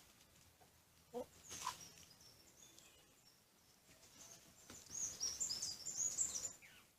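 Faint high bird chirping, a quick run of twittering chirps lasting about a second and a half, starting near five seconds in, after a couple of brief soft sounds earlier on.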